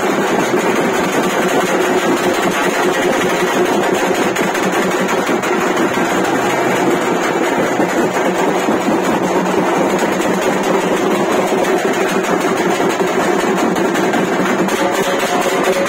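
Dappu frame drums beaten with sticks in a fast, unbroken, loud rhythm.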